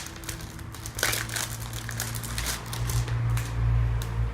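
Packaging of a squishy toy crinkling and crackling in a series of short rustles as it is handled and pulled at to get it open, over a low steady hum.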